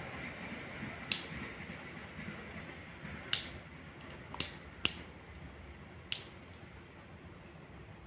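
Five sharp clicks from a padlock's brass-and-steel lock cylinder being handled and taken apart by hand. Two come close together in the middle, and the rest are spaced a second or two apart.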